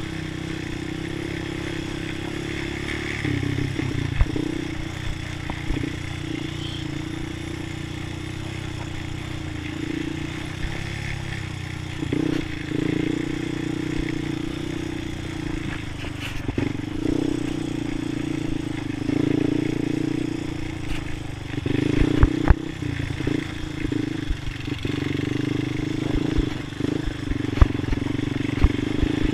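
Honda ATV's single-cylinder engine running at low speed, the throttle opening and easing off several times, with scattered sharp knocks and rattles from the quad jolting over rough ground.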